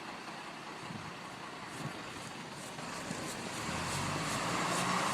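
Steady running noise of a road vehicle, growing louder in the second half as a low engine hum comes in.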